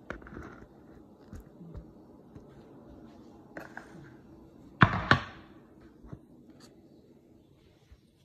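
Handling noise: scattered light taps and knocks, with two sharp, loud knocks about five seconds in.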